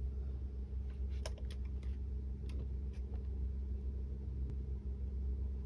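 A few light clicks and taps as bare feet step onto a digital bathroom scale, over a steady low hum.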